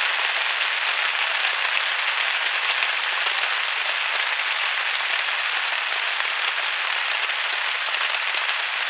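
Heavy rain falling steadily on a plastic-sheet tarp overhead, an even, unbroken hiss.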